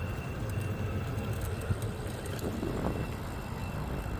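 Steady low rumble of wind buffeting the microphone and tyre noise while riding a bicycle, with a faint steady high-pitched tone underneath.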